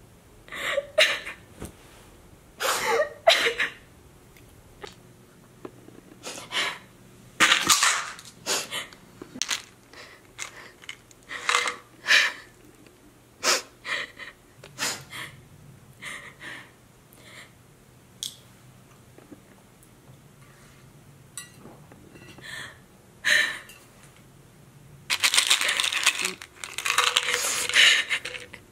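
A young woman crying: sniffles, short gasping sobs and breaths, with capsules clinking as they are shaken out of a plastic pill bottle into her hand.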